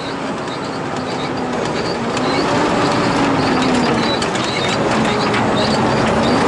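Renault K-series rally truck's engine running under load, heard from inside the cab, its pitch rising slightly and falling back about midway. Over it the cab and roll cage rattle and knock continuously on the rough dirt track.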